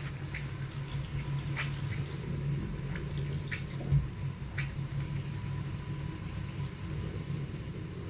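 Mini 3 kg iHunt automatic washing machine running a wash: a steady motor hum under water sloshing and splashing, with a soft thump about four seconds in.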